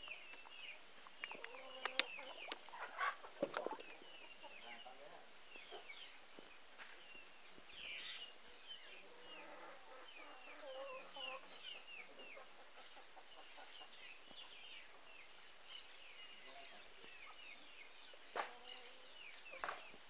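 Birds chirping in many short, repeated calls. Over them come a few sharp pops and splashes of fish snapping floating feed pellets at the water surface, the loudest about two seconds in, again a second or so later, and near the end.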